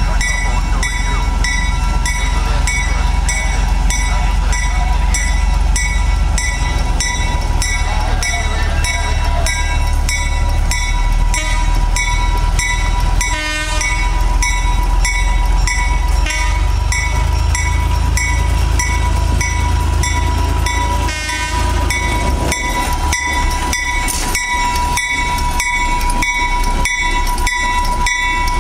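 Small diesel switcher locomotive No. 45 running its engine as it rolls slowly past close by: a loud, steady engine throb of about three beats a second with a whining tone over it.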